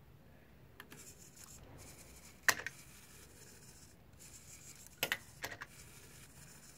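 Hard plastic parts clicking and scraping on a desktop: light scraping stretches, one sharp click about two and a half seconds in, and two more clicks around five seconds in.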